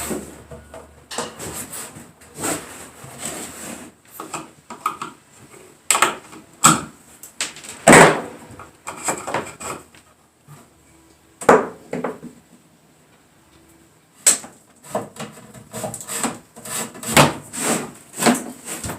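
Irregular knocks, scrapes and rubbing on wood as electrical wire is run through a wooden building's framing, with a quieter stretch in the middle.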